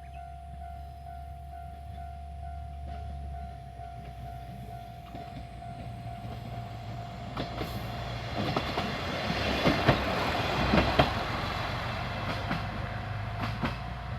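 Diesel railcar made up as a Shinkansen lookalike passing over a level crossing, its wheels clicking over the rail joints and the crossing, loudest between about eight and eleven seconds in, over a low engine hum. A level-crossing warning alarm rings steadily throughout.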